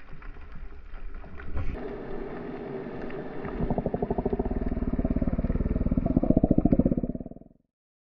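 Underwater sound on a freediver's camera: faint crackles and knocks at first, then from about three and a half seconds a fast, pulsing gurgle of water and bubbles that grows louder as he rises toward the surface, fading out near the end.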